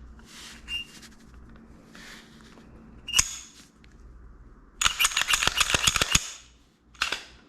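Metal clicks and clacks of a Glock 19 style pistol being handled as it is cleared: one sharp click about three seconds in, a quick run of about a dozen clicks for about a second and a half, and one more click near the end.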